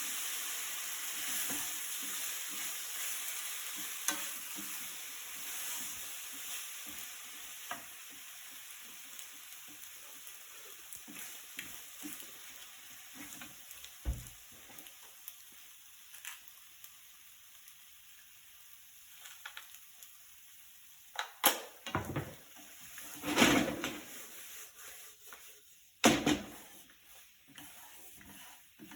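Penne Napolitan sizzling in a frying pan while a utensil stirs it with small scraping ticks; the sizzle fades over the first ten seconds or so. Later come a few loud knocks and clatters, the loudest sounds, about twenty-one, twenty-three and twenty-six seconds in.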